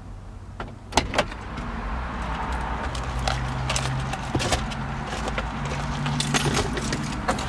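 A Jeep's driver door unlatching with two sharp clicks about a second in. Then a string of clicks and rattles as someone climbs into the seat, over a low steady rumble.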